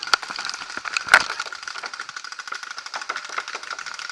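Paintball markers firing around the field: many sharp, irregular pops several times a second, with a heavier thump about a second in.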